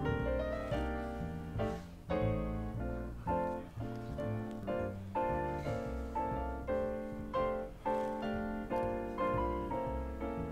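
Instrumental background music led by piano, with notes struck in a regular pulse.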